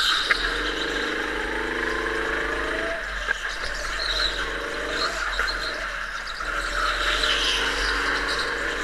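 Go-kart engine running under throttle, heard from the driver's seat: it pulls strongly, fades as the throttle comes off for the bends, then picks up again. Short squeals from the tyres come as the kart slides through the turns, about four and seven seconds in.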